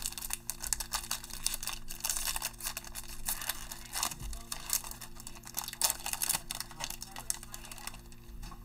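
Foil wrapper of a 2020 Mosaic football card pack being torn open and crinkled by hand, a dense run of sharp crackles and rips that eases off near the end.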